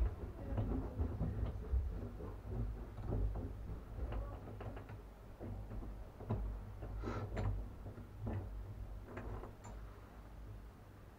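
Irregular clicks, taps and scrapes of a socket wrench and metal valve parts being handled while loosening the nuts on a shower valve stem, over a low steady rumble.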